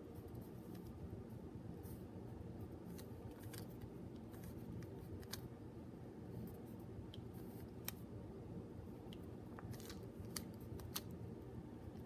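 Qiyi 3x3 mini keychain puzzle cube's plastic layers clicking faintly as they are turned, in irregular sharp clicks over a low steady hum.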